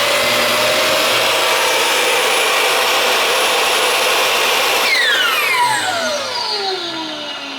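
Makita 5402NA 16-5/16-inch circular saw running free at full speed with a loud, steady whine. About five seconds in the trigger is released and the saw winds down, its pitch falling steadily.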